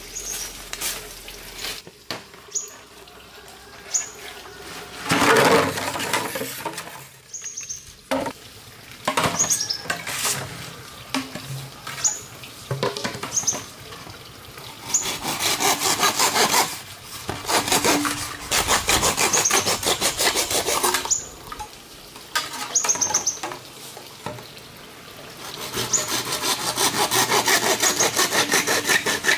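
A green bamboo pole being sawn through by hand with a blade, in several bouts of quick back-and-forth strokes with pauses between, the longest bout near the end.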